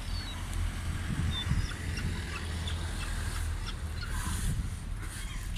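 A flock of gulls calling, many short scattered cries, over a steady low rumble.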